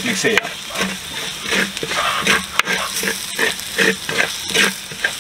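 A spatula stirring and scraping through frying onion masala in a pan, in quick repeated strokes about two to three a second, over a steady sizzle.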